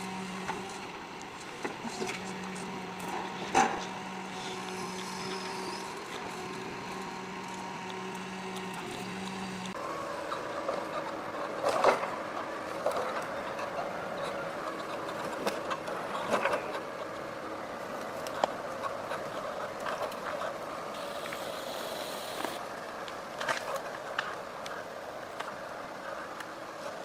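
Heavy forestry machine running with a steady engine hum; about ten seconds in the sound changes abruptly to a rougher, noisier run with scattered knocks and clatters.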